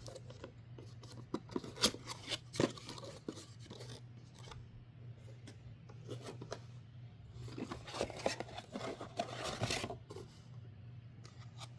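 Retail CPU box packaging being handled and opened: scattered clicks and taps in the first few seconds, then a stretch of rustling and scraping about eight to ten seconds in.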